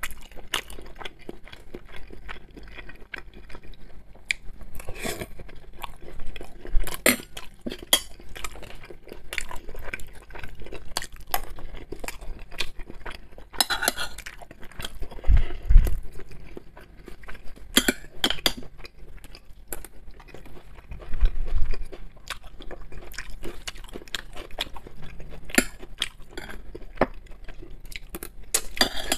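Close-miked eating: chewing and mouth sounds of sausage and buckwheat, with a metal fork and spoon clinking and scraping on ceramic plates in many short clicks. Two low thumps come about halfway through and again a few seconds later.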